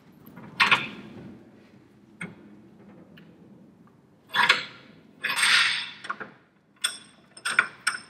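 Bench vise being wound in to crush the end of a copper pipe around a bolt into a battery lug. The vise handle and jaws give a few separate metallic clanks and scrapes, the longest a little after the middle, followed by several short clicks near the end.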